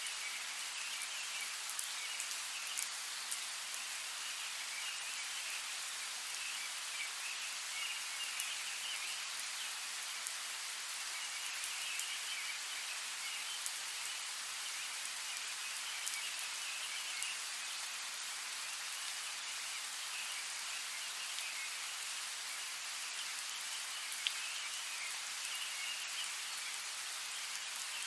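Steady rain falling, a constant hiss with scattered sharper drop ticks.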